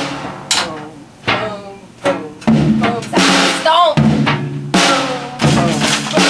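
A toddler beating on a drum kit with sticks: about eight hits at an uneven pace, each drum ringing on briefly after the stroke.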